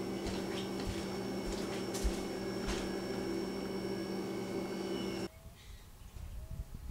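Steady hum of an indoor electrical appliance, with several held tones and a few light clicks, which cuts off suddenly about five seconds in. A quieter outdoor background with a few faint short rising chirps follows.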